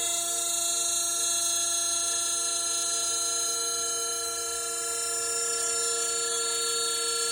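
CNC carving router running steadily, giving a constant whine made of several fixed tones.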